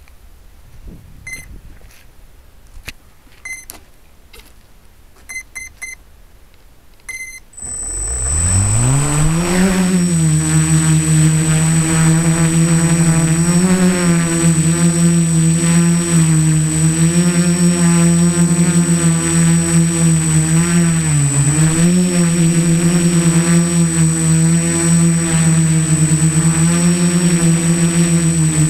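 A few short electronic beeps, then the brushless motors and propellers of a home-built mini tricopter spool up with a rising whine about seven seconds in. They settle into a steady buzzing drone as it takes off and flies, the pitch wavering with the throttle. Heard from a keychain camera mounted on the craft, with a constant high whine over the motor sound.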